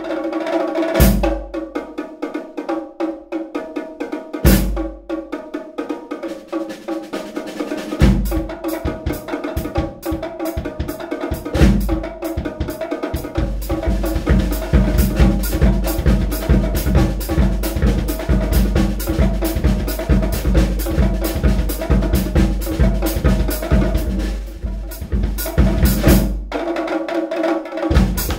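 Group of drummers playing snare drums, bass drums and drum kits together: heavy accented hits every three to four seconds at first, then a steady fast beat from about halfway through that breaks off briefly near the end.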